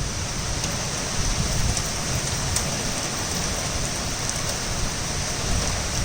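Torrential rain falling steadily, a dense even hiss with an occasional sharp tick of a single drop landing close by.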